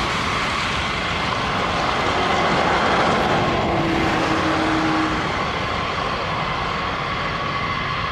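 The eight Pratt & Whitney TF33 turbofan engines of a Boeing B-52H Stratofortress running at taxi power as the bomber rolls along the taxiway: a steady jet rush with a thin whine in it.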